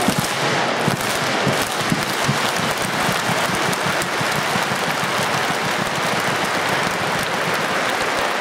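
A large stadium crowd of football supporters clapping in unison above their heads: dense, loud massed clapping with crowd noise.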